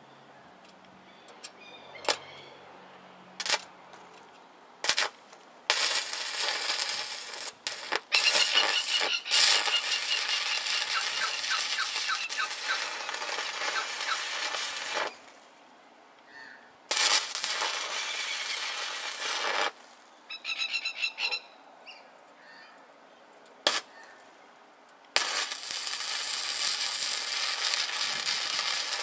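Stick welder arc on steel: a few short sharp cracks as the electrode is struck, then the arc crackling steadily in runs of several seconds. It breaks off and is restruck a few times.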